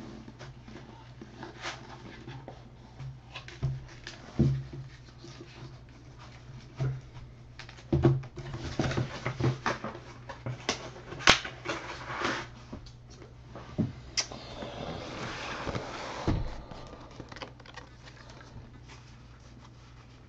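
Cardboard hobby boxes of trading cards being handled and restacked: scattered knocks and taps with some cardboard and wrapper rustling, over a steady low electrical hum.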